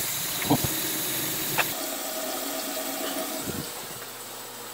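Vinegar and red-pepper barbecue sauce simmering in a saucepan on the stove: a steady bubbling hiss, with a couple of small clinks in the first two seconds, growing quieter about halfway through.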